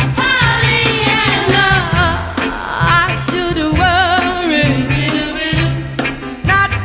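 Early-1960s girl-group pop record: women's voices sing with vibrato over a walking bass line and drums.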